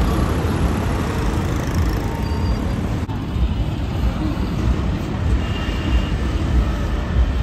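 Steady noise of busy road traffic, a heavy low rumble of passing engines.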